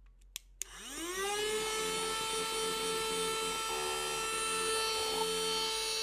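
Little Candy.os 9000Pa mini cordless vacuum cleaner switched on: two clicks, then its motor spins up with a rising whine and runs at a steady whine.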